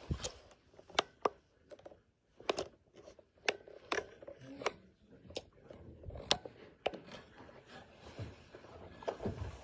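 Irregular sharp clicks and taps, about a dozen, over a low rubbing rumble: a plastic weather radio being handled and turned over in the hands.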